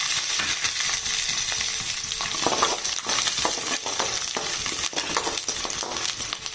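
Hot oil sizzling in a metal kadai as dried red chillies, coriander seeds, cumin and fresh garlic cloves fry, with a steady hiss and many small crackles. Partway through, a metal spoon stirs the spices around the pan.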